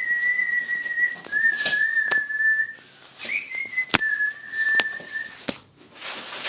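A high, steady whistle like a whistling kettle's, held on nearly one note. It breaks off and starts again several times, dropping slightly in pitch after the first break. A few sharp clicks and bursts of hiss sound among it.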